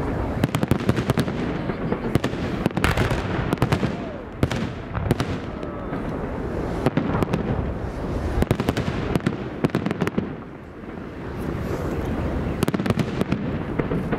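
Aerial fireworks bursting: many sharp bangs and crackles in quick succession, easing into a brief lull about ten seconds in before picking up again.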